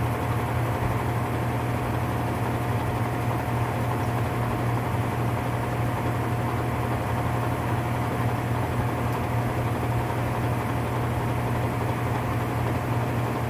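Whirlpool top-load washer running in high spin, a steady low mechanical drone with a constant whine and grinding from the drive. The noise is the sign of a defective gear assembly (transmission).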